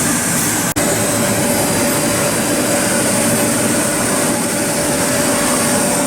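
Gildemeister Speed 12-7 Linear Swiss-type CNC lathe running: a steady mechanical hiss and hum with a steady high whine and a lower tone, cut off for an instant under a second in.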